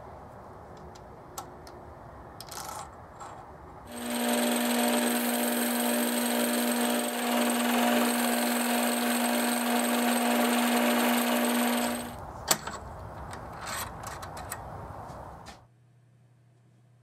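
Metal lathe starting about four seconds in and running for about eight seconds, a steady hum with a cutting hiss as a tool bit machines a small steel part held in a collet, then stopping. Before and after it, light clicks and knocks of the part being fitted and handled in the collet.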